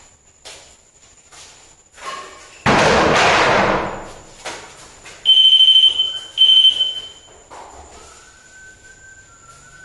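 A loud thud-like crash about three seconds in, ringing on for about a second, then two loud high electronic beeps about a second apart from a paranormal ball, a ghost-hunting sensor set off by the strong thud.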